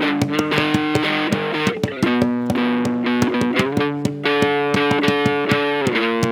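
Guitar playing sustained chords that change every second or two, with quick, steady knocks from hands banging on a tabletop standing in for drums.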